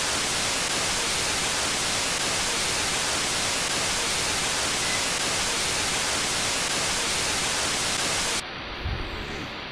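Steady hiss of static, even across the whole range, that cuts off abruptly about eight seconds in, leaving quieter room sound with a couple of soft low thumps.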